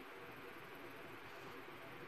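Steady faint hiss: an even noise with no distinct strokes, clicks or changes.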